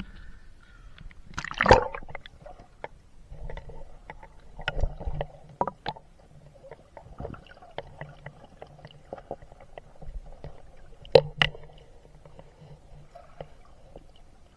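Water sloshing and gurgling around a camera in a waterproof housing, with scattered muffled clicks and knocks. There are two sharper knocks, one about two seconds in and one about eleven seconds in.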